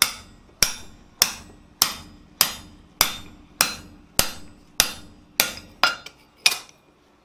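Hand hammer striking a round steel punch held in a hot steel blank on an anvil: a steady beat of about eleven ringing metal-on-metal blows, a little under two a second, stopping about six and a half seconds in. The punch is being driven through to open up a punched hole so that a drift will fit.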